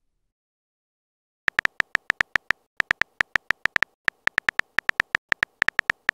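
Chat app's simulated keyboard typing sound: a fast, uneven run of short pinging clicks, one per letter typed, about seven a second with brief pauses, starting about a second and a half in.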